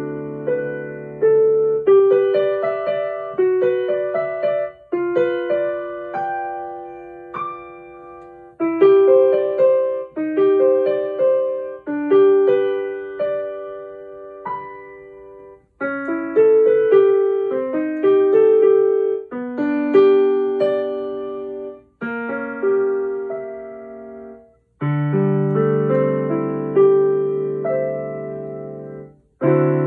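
Digital piano played by hand: a simple melody over chords in short phrases, each ending in notes left to fade before the next phrase begins.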